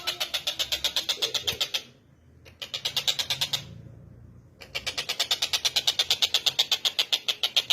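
Tengkek buto kingfisher calling in rapid, fast-pulsed rattling trills of about ten notes a second, three runs broken by short pauses.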